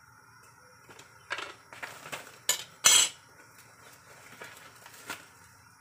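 Metal cookware and utensils clinking and clattering in a string of sharp knocks, the loudest about three seconds in.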